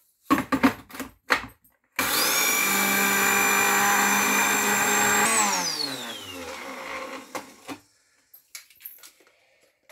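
Kenwood electric spice grinder grinding roasted cumin seeds to powder. A few clicks come as the jar is seated on the base. About two seconds in the motor whines up to speed and runs steadily for about three seconds, then winds down with a falling whine once switched off. A few more clicks follow as the jar is handled.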